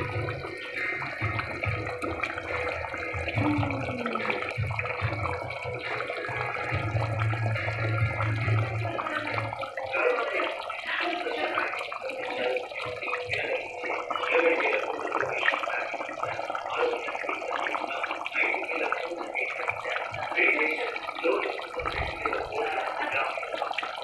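A steady watery noise of running or bubbling liquid, with low rumbling through the first ten seconds and briefly again near the end.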